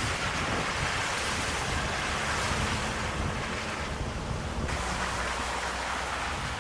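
Wind rushing over a camera microphone held outside a moving motorhome, mixed with its tyres running through wet mud and puddles on a dirt road, and a low engine rumble beneath.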